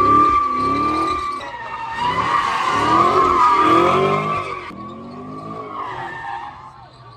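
Car tyres screeching in a long continuous squeal while the engine revs up and down repeatedly. The sound fades after about five seconds.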